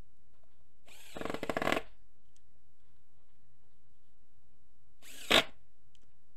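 Power drill running in two short bursts into a wooden 4x4 post: one about a second long with a rapid pulsing, then a brief, louder burst near the end.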